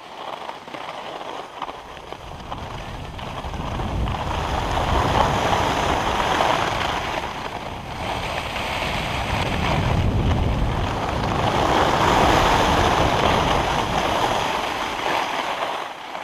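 Wind rushing over an action camera's microphone, with skis hissing over groomed snow during a downhill run. The noise swells as speed builds, eases about eight seconds in, then swells again.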